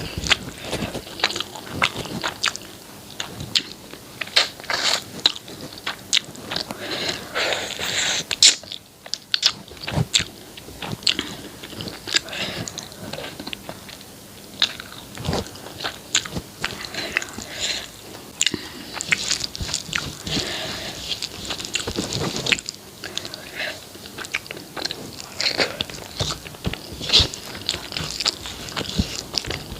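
Close-miked eating sounds: a person chewing and biting food, with many quick wet mouth clicks and crunches and a short pause about nine seconds in.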